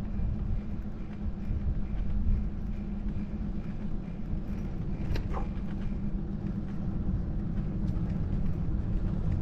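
Steady low rumble of wind buffeting a bike-mounted action camera's microphone, mixed with bicycle tyre noise on asphalt while riding. A brief higher sound about five seconds in.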